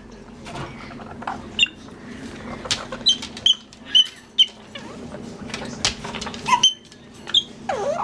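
Lilac-crowned Amazon parrot giving a string of short, sharp squeaks, about a dozen at uneven intervals, with a lower swooping call near the end.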